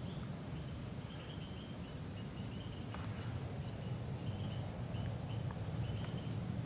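Outdoor woods ambience: a steady low rumble with faint, short high-pitched chirps repeating irregularly throughout, and a few light clicks.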